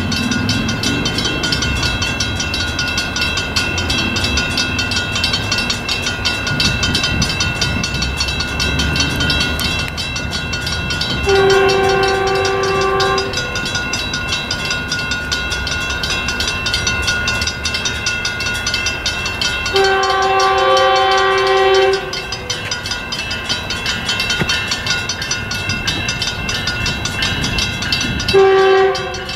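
An approaching Metrolink train's horn sounding the grade-crossing signal: two long blasts and then a short one. Grade-crossing bells ring steadily under it.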